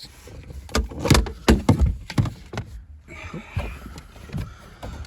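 A series of sharp plastic knocks and clunks as car trim is pried loose and handled, with the loudest hits in the first half, then quieter rustling and handling.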